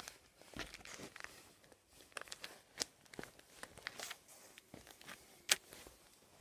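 Scattered small clicks, crinkles and rustles of a worn Nike Air Max 95 sneaker being flexed and shifted on a wooden floor, with one sharper click about five and a half seconds in.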